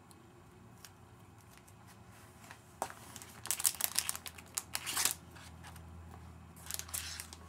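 Packaging crinkling and rustling in bursts of short crackles as items are handled and taken out of the box, busiest from about three to five seconds in and again near the end.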